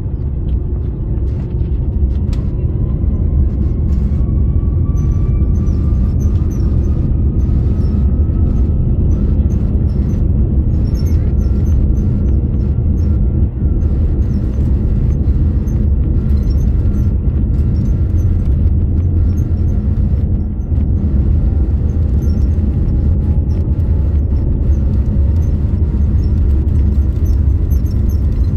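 Airliner jet engines heard from inside the cabin during the takeoff roll: a loud, steady, deep rumble, with a faint whine that rises through the first ten seconds or so as the engines spool up.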